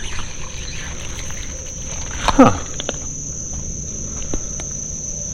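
Steady, high-pitched chorus of insects chirping without a break.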